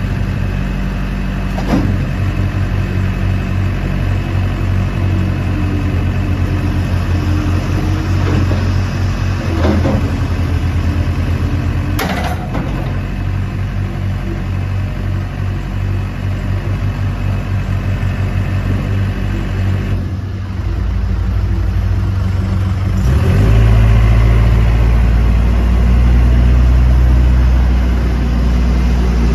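Case 580M Series 2 backhoe's 80 hp Case diesel engine running steadily, with a few sharp knocks. It gets louder and deeper about three quarters of the way through.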